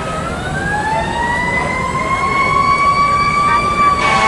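Trains at close range: a long, high-pitched tone glides up in pitch over the first second or so and then holds, over a steady low rumble.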